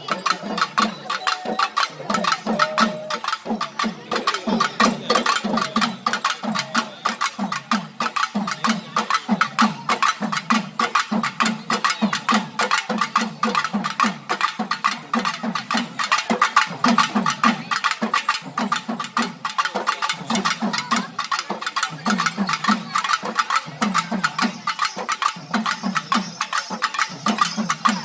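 Festival drumming: a rapid, continuous patter of drum strokes over a steady deeper beat, played for the procession's dancing.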